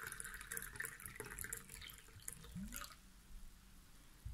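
Lemonade pouring from a glass carafe into a small drinking glass: a thin, faint trickling stream that stops about three seconds in.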